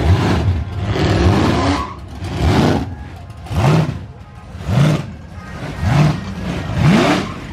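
Blown (supercharged) V8 engine of a street-machine ute revved in repeated throttle blips, about one a second, each rising in pitch and dropping back to a rough, lumpy idle.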